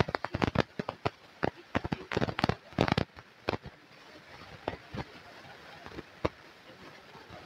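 A rapid run of sharp cracks and pops, crowded together for about the first three seconds, then only a few scattered ones over a faint steady background.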